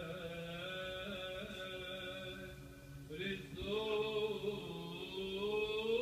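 Slow chanted hymn: a voice singing long held notes, with a brief pause about halfway through.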